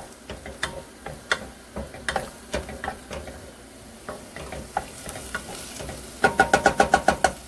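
Beef frying in oil and soy sauce in a pot, sizzling as it is stirred, with a utensil scraping and clicking against the pot. Near the end comes a fast run of about ten loud knocks that ring.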